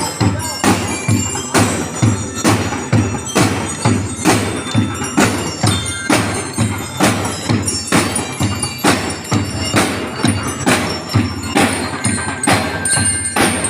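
Drum and lyre band playing: bell lyres ring out the tune over a steady beat of marching drums, about two strong beats a second.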